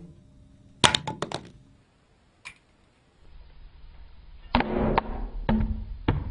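Samsung Galaxy S4 smartphone dropped onto a rough concrete slab: a quick clatter of several sharp impacts about a second in as it strikes and bounces off. A few heavier knocks and thuds follow later on.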